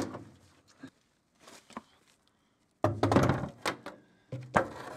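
Steel fuel tank being lowered out from under a Honda Integra: a light click, then a louder clattering scrape about three seconds in, followed by a few sharp knocks.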